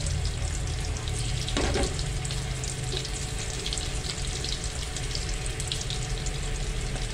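Pork slices sizzling in hot oil with mắc mật leaves in a steel wok, a steady frying hiss dotted with small crackling pops. The meat is being turned with chopsticks as it fries golden.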